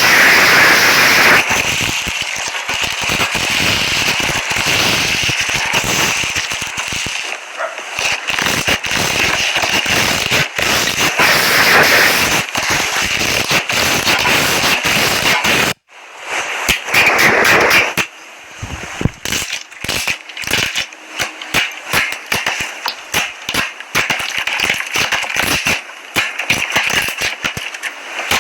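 Slime being squished and worked, crackling and popping with trapped air in dense clicks. It cuts off suddenly about halfway through, and sparser pops and clicks follow.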